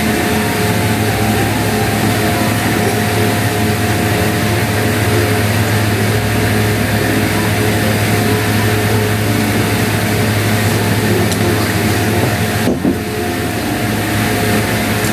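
Steady whooshing hum of an electric fan running, with a low motor hum and a faint steady tone, dipping briefly near the end.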